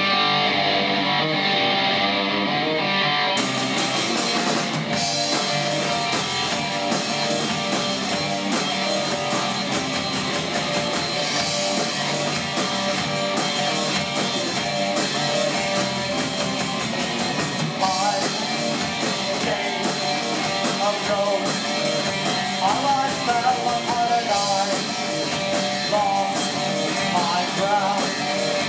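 A rock band playing live: electric guitar, electric bass, drum kit and keyboard, at a steady level.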